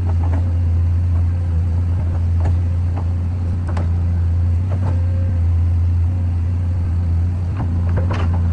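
Heavy diesel engine of an excavator running steadily with a deep drone, with occasional short metallic knocks and clanks from the machine at work.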